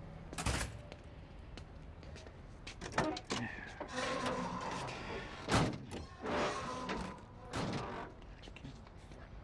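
The metal rear cargo door of a box delivery truck being unlatched and swung open, with a run of clunks, rattles and knocks, the loudest about halfway through, as bulky laundry bags are pushed into the cargo space.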